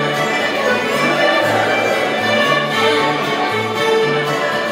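Ceilidh dance music led by a fiddle, over a bass line that steps between notes in a regular beat.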